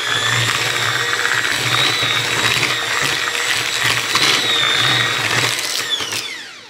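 Breville electric hand mixer running at speed, its silicone-tipped beaters whirring through loose cream cheese cookie batter in a stainless steel bowl, with a steady motor whine. Near the end the whine falls in pitch and dies away as the mixer is switched off.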